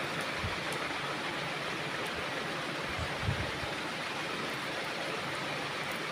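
Steady, even hiss of background noise, with a few soft low thumps, the clearest about three seconds in.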